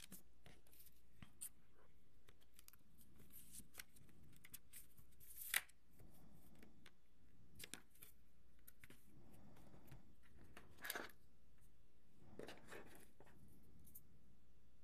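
Faint rustling and clicking of the cardboard and paper packaging of an iPad mini box handled by hand. There is one sharp click about five and a half seconds in, and short rustles later on.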